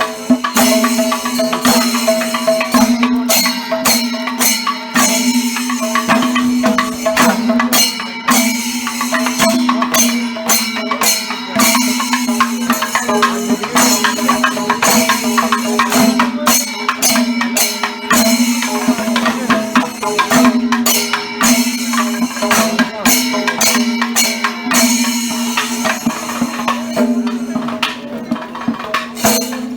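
Percussion-led music: dense drum and hand-percussion strikes over a steady held tone.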